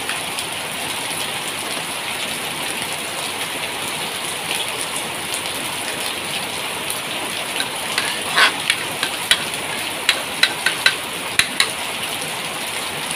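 Steady hissing of a coconut-milk curry cooking in the pan with spotted babylon snails in their shells. Several sharp clicks and clinks come between about eight and twelve seconds in, a utensil knocking against the pan and the snail shells as the curry is stirred.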